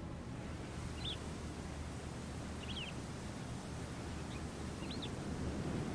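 Outdoor ambience: a steady low background hum with a few short, high bird chirps scattered through it.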